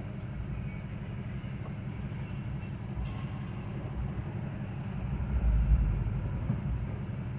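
Wind buffeting the microphone: a steady low rumble that surges louder about five seconds in, then settles.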